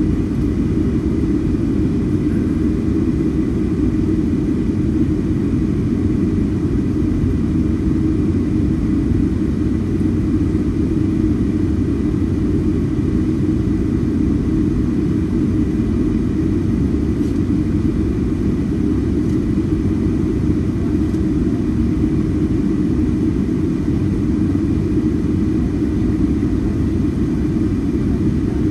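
Boeing 757-300 with Rolls-Royce RB211 engines on the ground, a steady low noise that neither rises nor falls, with a faint steady tone above it.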